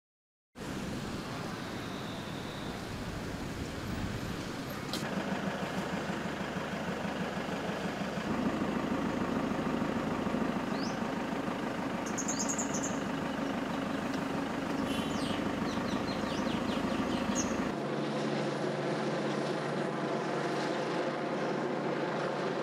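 Outdoor street sound dominated by vehicle engines running, with a few short high chirps between about 11 and 16 seconds in. The hum turns steadier and lower for the last few seconds.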